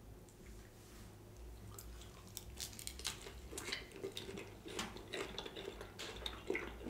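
Close-miked eating of a fried seafood birria taco dipped in sauce. About two seconds in comes a crunchy bite, then wet chewing with irregular crunches and mouth smacks.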